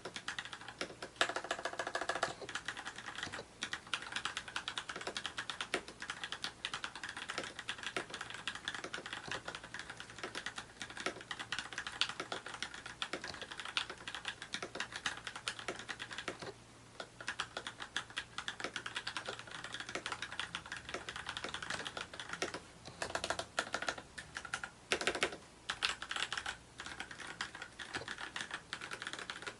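Fast, continuous typing on a mechanical keyboard fitted with lubricated Gateron Clear linear switches (35 g), with a brief pause a little past halfway.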